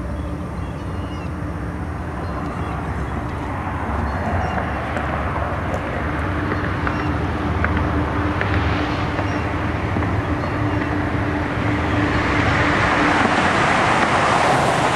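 A CSX intermodal freight train running along the river's far shore: a steady rumble with a low drone. A rushing vehicle noise swells louder over the last few seconds.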